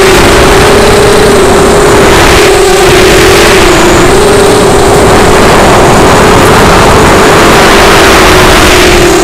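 Emax RS2205-2300 brushless motors and propellers of a QAV210 FPV racing quadcopter, heard on its onboard camera: a loud, steady whine that wavers slightly in pitch as the throttle shifts, over heavy wind and prop wash rushing across the microphone.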